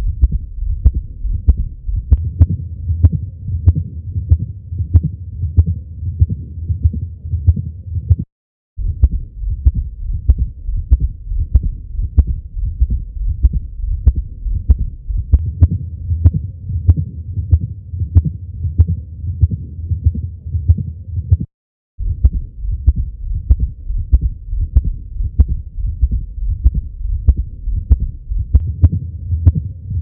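Human heartbeat heard through a stethoscope, first with the bell and then with the diaphragm: a steady rhythm of short, sharp beats over a low continuous rumble. The sound cuts out briefly twice.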